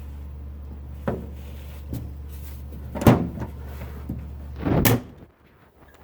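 Five sharp knocks and clacks over a steady low hum that cuts off near the end.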